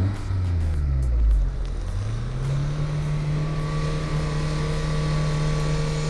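An off-road 4x4's engine is revved up about two seconds in and held at steady high revs as the vehicle climbs a steep sandy slope.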